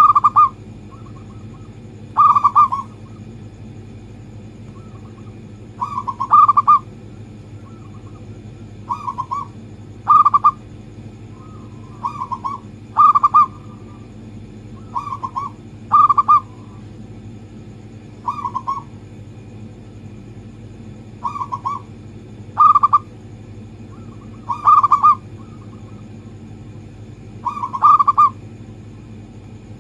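Zebra doves (local perkutut) cooing: short phrases of a few quick, rolling coos, repeated every one to three seconds over a steady low hum.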